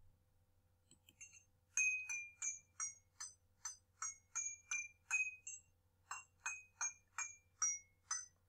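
Spoon tapping the rims of a row of drinking glasses holding different amounts of water, a quick run of bright ringing strikes, each glass at its own pitch. The pitch steps lower and then higher across the glasses, with a short pause about six seconds in.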